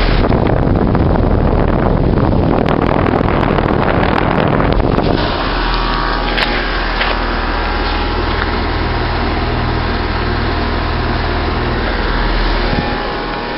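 Bryant Evolution 16 SEER two-stage heat pump outdoor unit running: a loud rush of air for about the first five seconds, then a steadier hum with low steady tones from the fan and compressor. A single sharp click about six and a half seconds in.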